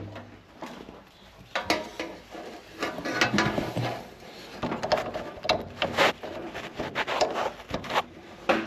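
Irregular clicks, clanks and scrapes of hand work on a John Deere 2030 tractor that won't start, while its fault is being looked for.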